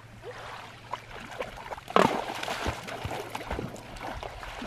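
A dog splashing as it wades out into shallow lake water, with a louder splash about two seconds in, over small waves lapping on a gravel shore.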